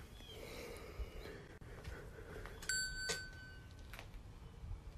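A single bright metallic ring, like a small bell, struck a little under three seconds in and fading away within about a second.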